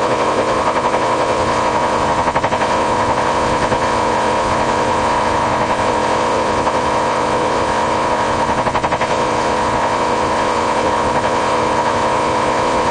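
Loud, unbroken electronic noise with a steady high tone running through it, a sound effect standing in for a character talking in Morse code.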